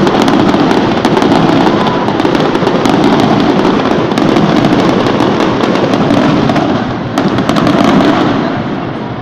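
Fireworks going off continuously, a dense run of rapid cracks and bangs that thins slightly near the end.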